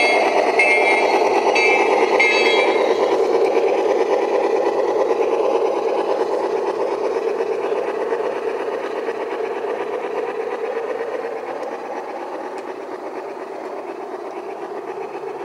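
A G-scale model train rolling along garden track, a steady rumble that fades slowly as the train moves away. For the first two or three seconds a high squeak repeats a little under twice a second.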